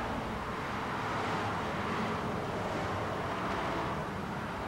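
Steady hiss of highway traffic, tyres on pavement blending into one even noise with no single vehicle standing out.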